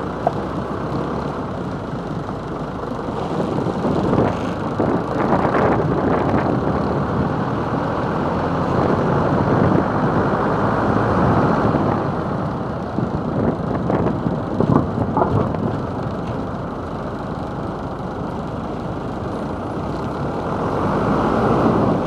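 A camper van driving, heard from a camera on its roof: a steady rush of road and wind noise over the engine, swelling and easing with the speed.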